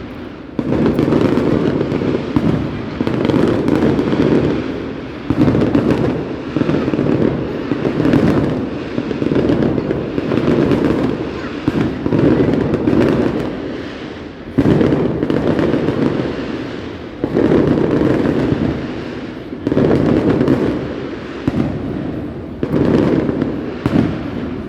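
Fireworks bursting in a steady run, roughly one a second, each a sudden loud bang followed by a rumble that fades out before the next.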